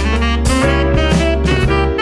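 Background instrumental music with a held melody line over a bass and a steady beat.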